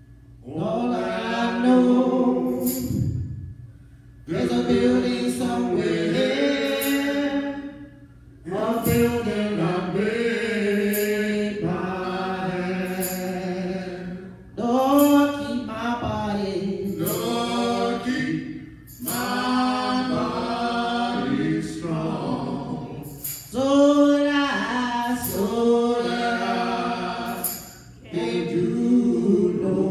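A gospel vocal trio singing a cappella into microphones, in long held phrases with short breaks between them.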